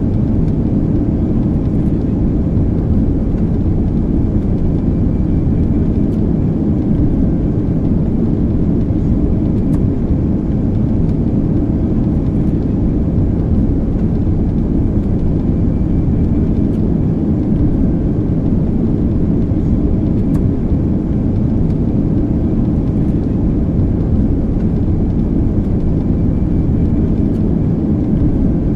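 Airplane in flight heard from the passenger cabin: a steady, low engine and airflow drone that does not change.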